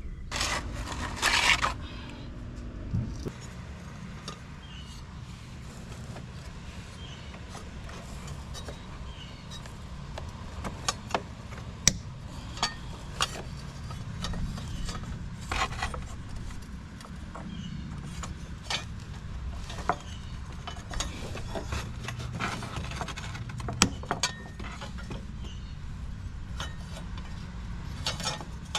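Scattered clicks, small knocks and scrapes of hands and tools working a fuel filter and its fuel line fittings loose, over a steady low hum.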